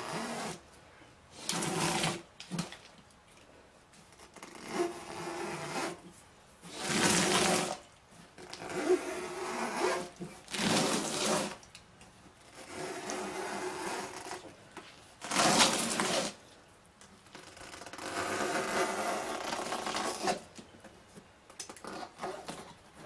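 A hook blade drawn by hand through the rubber sidewall of a wet car tire, in about nine separate cutting strokes of roughly a second each with short pauses between.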